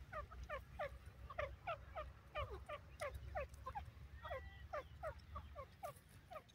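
Grey francolin (grey partridge) calling: a rapid run of short, falling chattering notes, about three a second, with a brief level whistle about four seconds in. A low rumble lies underneath and fades out near the end.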